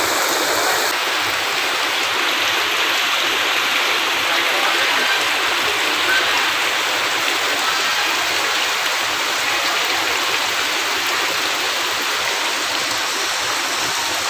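Heavy rain pouring down steadily during a storm.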